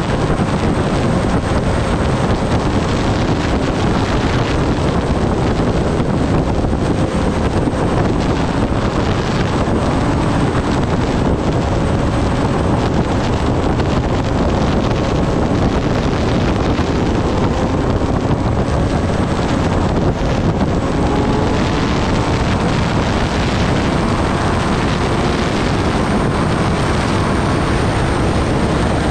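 Heavy wind rush on the microphone at highway speed, with the Kawasaki ZX-10R's inline-four engine cruising steadily underneath, its pitch drifting only slightly.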